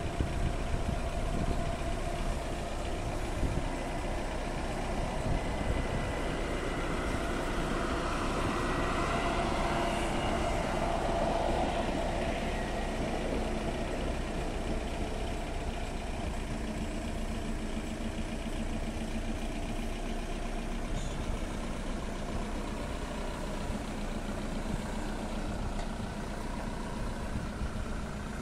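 Level-crossing warning bell of an AŽD 71 crossing, the classic type, ringing steadily while an electric multiple unit passes. The train's noise swells and fades about eight to twelve seconds in.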